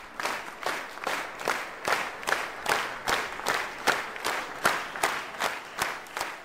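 Theatre audience clapping in unison at a curtain call, a steady beat of about two and a half claps a second.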